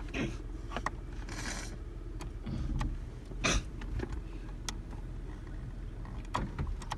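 Low steady rumble of a car's running engine heard inside the cabin, with a scattering of short clicks and knocks, the sharpest about halfway through.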